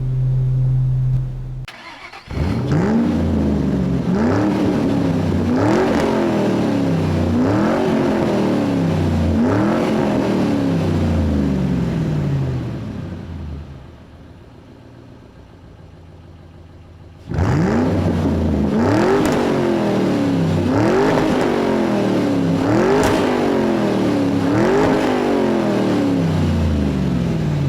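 A car engine being revved over and over, each rev climbing quickly and sinking back slowly, about every two seconds. The revving stops for a few seconds midway and then starts again.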